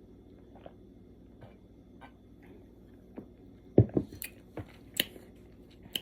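Drinking soda: faint sips for the first few seconds, then about four seconds in a loud gulp and a second swallow, followed by a few sharp mouth clicks.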